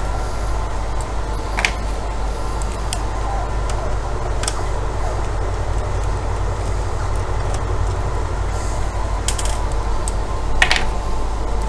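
Steady background hum with a few light clicks and taps, from a screwdriver working a screw out of the plastic router case.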